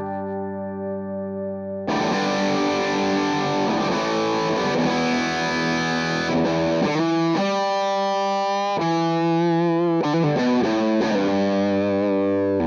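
Electric guitar, a Fender Telecaster Deluxe, played through a JHS Angry Charlie distortion pedal into an Orange Rockerverb 100 amp: distorted, Marshall JCM800-style chords. A chord rings quietly at first, then about two seconds in a loud passage of strummed, held and changing distorted chords starts.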